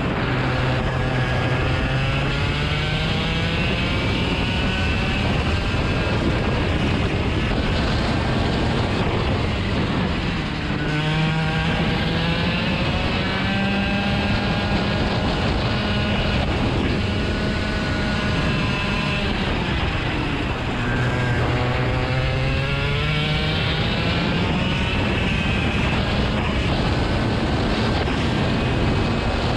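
An engine running continuously, its pitch sliding down and back up in long sweeps roughly every ten seconds.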